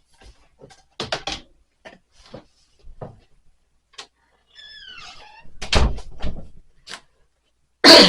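Scattered knocks and clatter of things being handled, with a short falling squeak about five seconds in and heavy thumps just before six seconds; a loud knock comes right at the end.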